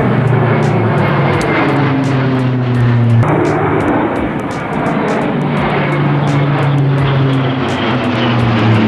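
Four-engine turboprop military transport, a C-130 Hercules type, flying low overhead: a loud, steady propeller drone with a deep hum. Its pitch shifts slightly, and the sound changes abruptly about three seconds in.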